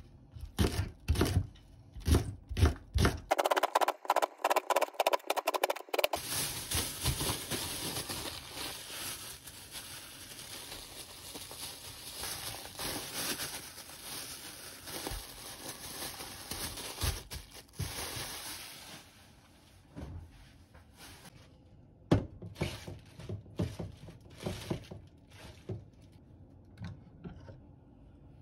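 Chef's knife chopping green onions on a plastic cutting board, sharp repeated strikes that quicken after about three seconds. Then a plastic bag crinkles and rustles as the chopped onions are packed and the bag is twisted and tied, fading to a few scattered handling knocks.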